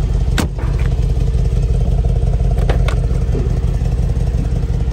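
Steady low engine rumble, with a sharp click about half a second in and two more close together near the middle.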